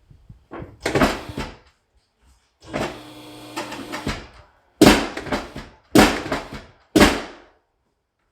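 Knocks from a face-down chiropractic back adjustment on a treatment table: a knock about a second in and a longer steady sound, then three sharp strikes about a second apart.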